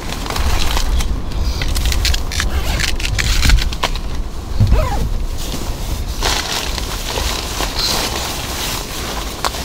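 Rustling and crinkling of nylon gear and tent fabric as things are handled, many small crackles over a steady low rumble.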